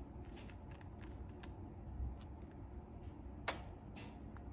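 Chinchilla nibbling dried orange peel: sparse, small, crisp crunching clicks, with one sharper click about three and a half seconds in.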